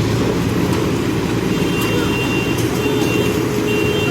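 Backhoe loader's diesel engine running steadily while it digs and loads. A steady higher whine joins about two-thirds of the way through.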